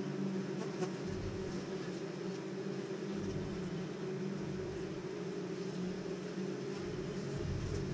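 Bees of a colony nesting in a hollow tree trunk, buzzing in a steady hum, with a low rumble swelling and fading underneath.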